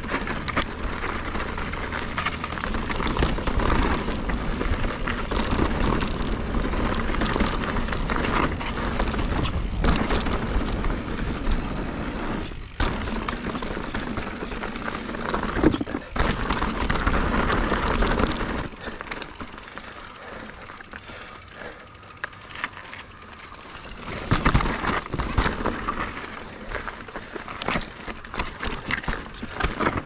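A full-suspension mountain bike (2021 Giant Reign) descending a dirt and rock trail: a steady rush of wind on a chest-mounted GoPro's microphone, mixed with tyre noise and the bike rattling and clicking over rocks. The rush drops off for a few seconds past the middle, then picks up again with more clatter near the end.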